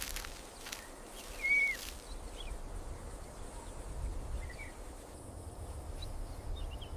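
Outdoor ambience: a low steady rumble under a faint hiss, with a few short bird chirps. The clearest chirp rises and falls about a second and a half in, and fainter ones follow later.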